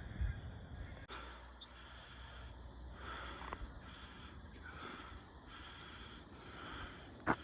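Heavy breathing while on the move outdoors, one soft breath about every second, over a low steady rumble of wind or handling noise; a sharp click near the end.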